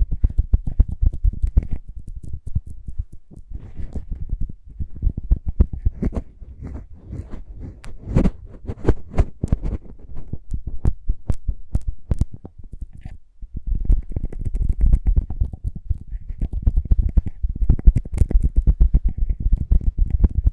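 Close-miked lip balm ASMR sounds: rapid, dense crackling taps and rubbing against the microphone with heavy low thumps, briefly stopping about 13 seconds in.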